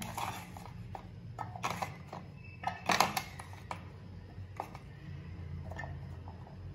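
Scattered light clicks and knocks as garlic cloves are handled and dropped into the clear plastic bowl of a manual chopper, the loudest knock about three seconds in, over a low steady hum.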